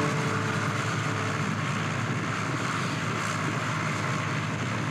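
Light aircraft's piston engine idling steadily with its propeller turning.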